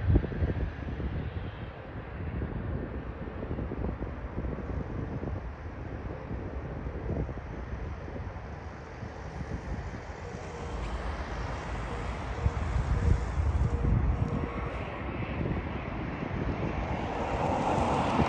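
Gusty wind buffeting the microphone, with the jet engines of an airliner on final approach growing louder through the second half.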